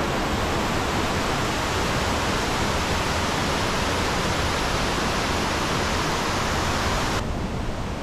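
Fukiware Falls, a broad, low curtain waterfall on the Katashina River, rushing steadily. About seven seconds in, the sound abruptly becomes a little quieter and duller.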